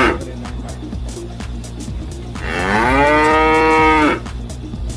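A cow mooing: one long moo that rises in pitch and then holds, about halfway through, with the end of an earlier moo right at the start. A steady low rumble runs underneath.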